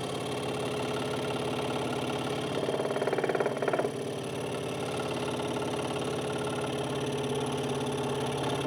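Hegner Multicut 2S scroll saw running steadily, its blade reciprocating, with a louder stretch of about a second around three seconds in.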